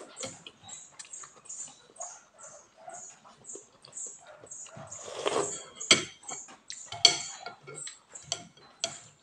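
Close-miked eating of noodle soup: rapid, wet chewing and lip-smacking about three times a second, with a longer slurp about five seconds in. Sharp clinks of a metal fork and spoon against the glass bowl come twice, about six and seven seconds in, and are the loudest sounds.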